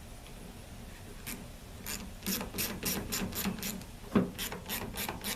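Hand ratchet clicking in quick, even strokes, about five a second, as screws are run in snug on a selector valve; a single louder knock partway through.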